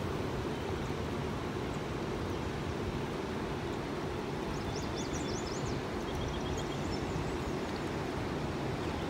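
Steady rushing of a fast-flowing river over rocks. About halfway through, a bird gives a short run of quick high chirps.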